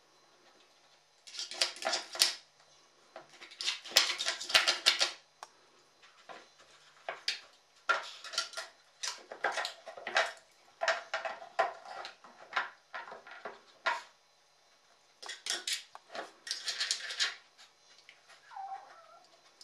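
Wooden dog puzzle toy clattering and scraping in irregular bursts as a small dog noses and paws at its sliding drawers and lids. A brief whine from the dog near the end.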